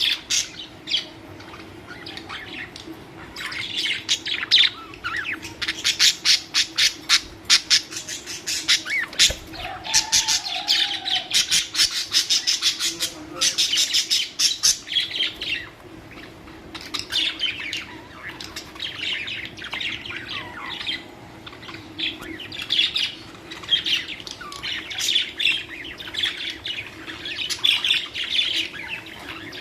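Budgerigars chattering and warbling, with rapid runs of short chirps and squawks, busiest in the first half. A steady low hum runs underneath.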